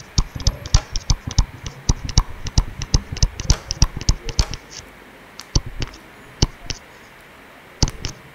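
Stylus tapping and scratching on a tablet's surface during handwriting: a fast, irregular run of sharp clicks that thins to a few scattered taps about halfway through.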